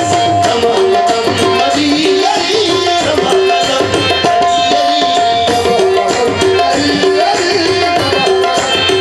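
Qawwali ensemble playing an instrumental passage: a harmonium melody with held notes over tabla drumming.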